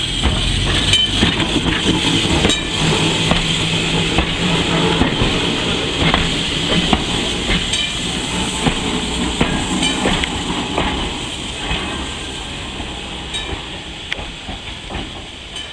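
A 1921 Peter Witt streetcar rolls past close by. Its wheels rumble on the rails, with scattered sharp clicks from the wheels over the track, and it grows quieter over the last few seconds as it moves away.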